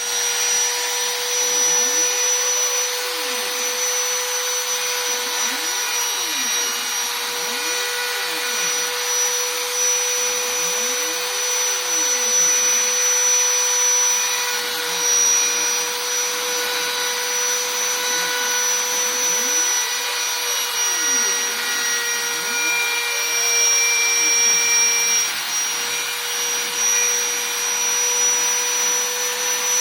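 Homemade CNC router carving a wooden cutting board. The spindle motor runs with a steady whine, while the stepper motors' pitch rises and falls again and again as the axes speed up and slow down.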